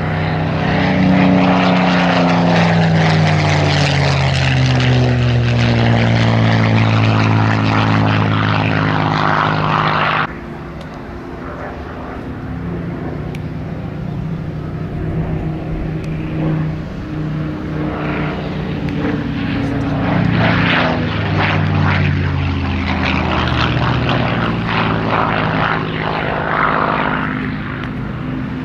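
Rolls-Royce Merlin V12 engine of a Second World War fighter in a display pass, loud and dropping in pitch as it goes by. About ten seconds in the sound cuts abruptly to a quieter, more distant drone that grows louder again later.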